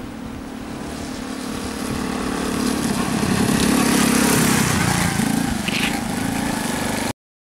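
Small moped engine running, growing louder over the first four seconds, then rising and falling in pitch as the revs change; the sound cuts off abruptly about seven seconds in.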